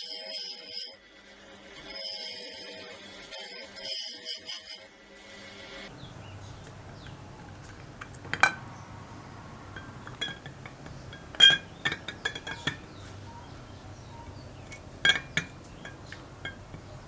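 Bell-like background music for about the first six seconds, then it cuts to quiet workshop room tone with a low hum. Scattered sharp metallic clinks and taps follow, from small parts or tools being handled, with three louder ones a few seconds apart.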